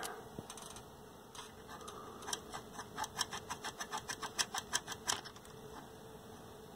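A quick run of light clicks, about five a second, starting about two seconds in and stopping about three seconds later, from fingers working the small control pots on the plastic control bracket of a TV chassis.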